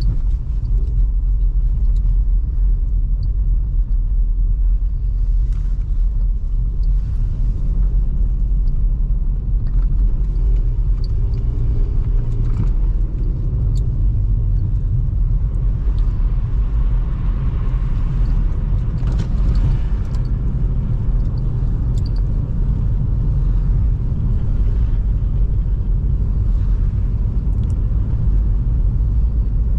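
2005 Toyota Highlander with its 3.3 L V6 driving along: a steady low rumble of engine and road noise.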